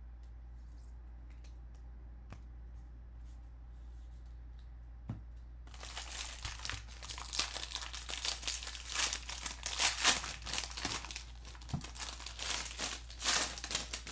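Foil wrappers of Bowman baseball card packs being torn open and crinkled, loud and crackly, starting about six seconds in. Before that there are only a few faint clicks of cards being handled.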